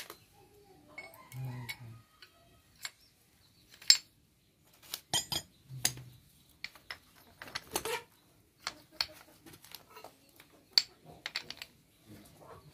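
Steel differential gears and cross pin of a Massey Ferguson tractor clinking and knocking together as the spider pinions are fitted by hand onto the cross beside the side gear: an irregular series of sharp metallic clinks, the loudest about four seconds in.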